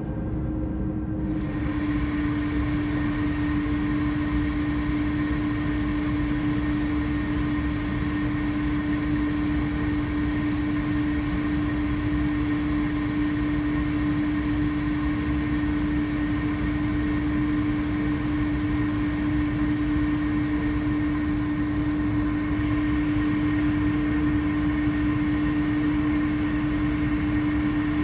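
Airbus A330-300 airliner's jet engines running steadily: a constant hum over a low rumble, with no spool-up.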